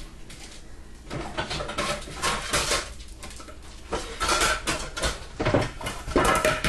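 Plates and dishes clattering and knocking against each other as they are rummaged through in a cupboard, starting about a second in and growing louder with a few sharper knocks.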